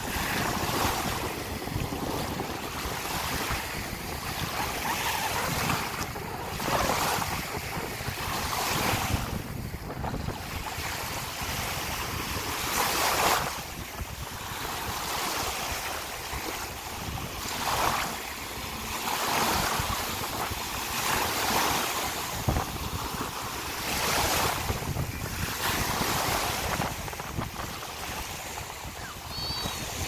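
Small sea waves washing in and breaking on a sandy shore, the surf swelling every few seconds, with wind rumbling on the microphone.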